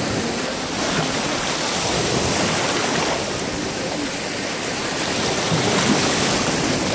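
Small waves breaking and washing through shallow surf: a steady rush of water.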